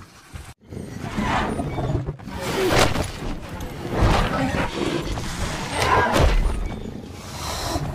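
Animated-dinosaur sound effects: a run of loud growls with heavy deep thuds, the strongest about four and six seconds in.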